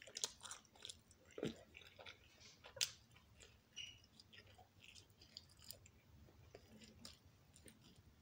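A person chewing and biting into a slice of pizza close to the microphone: irregular wet mouth clicks and smacks, with one sharper, louder click about three seconds in.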